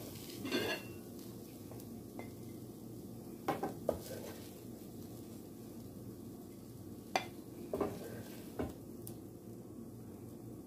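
Wooden spatula scraping and knocking in a frying pan and against a plate as fried rice is dished out: a handful of separate knocks over a steady low hum.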